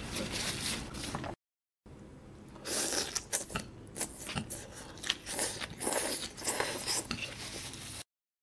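Close-miked biting and chewing of tteokbokki, chewy rice cakes and fish cake in spicy sauce, with irregular wet mouth clicks and smacks. The audio cuts to dead silence twice, briefly after a second and again near the end.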